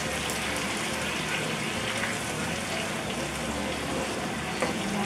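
Chicken stock pouring in a steady stream into a hot pan of cherry tomato sauce. Near the end a wooden spoon starts stirring and scraping the pan, with a few light knocks.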